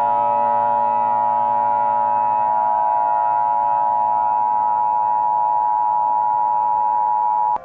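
Emergency Alert System attention signal: a steady two-tone electronic tone of 853 and 960 Hz, held about eight seconds and cutting off with a click near the end. A low, droning music bed runs underneath.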